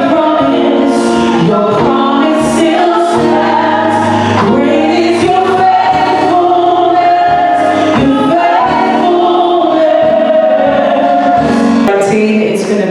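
Gospel worship song with a group of voices singing together over the music.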